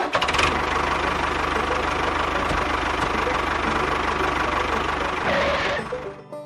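A motor running steadily with a fast rattling pulse, dying away about six seconds in.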